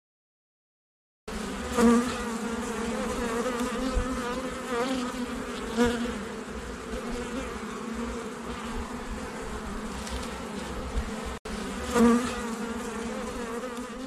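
Honeybees buzzing in a steady, many-voiced hum that starts abruptly about a second in. It swells for a moment three times as bees pass close, and breaks off for an instant near the end.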